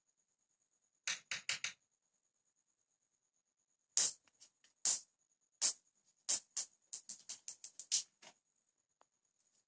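A small ball clicking and skittering across a hard floor as a cat bats at it: a quick run of four taps about a second in, then a longer irregular string of sharp taps from about four seconds in.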